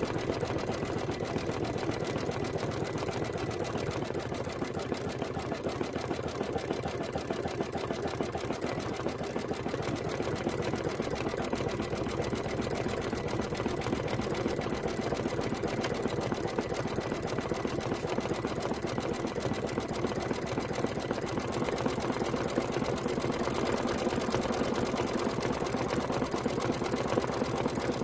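Embroidery machine stitching out a design: a fast, steady, even run of needle strokes.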